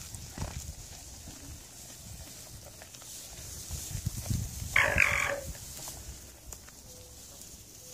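An alpaca gives one short, loud call, under a second long, about five seconds in. Around it, low rustling and knocking from alpacas pulling hay off a round bale.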